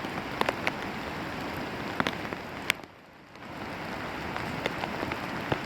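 Heavy rain: a steady hiss with raindrops ticking sharply, one by one, on a surface close by. The hiss drops away briefly about three seconds in.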